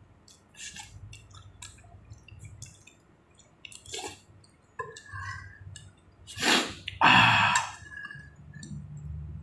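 Close-up eating sounds from a bowl of chicken thukpa noodle soup: wet chewing and small clicks, with two louder slurping bursts about six and a half and seven seconds in.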